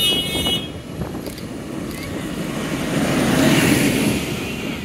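A tractor driving past close by, its engine and tyre noise swelling to a peak about three and a half seconds in and then fading. A short high tone sounds for about half a second at the start.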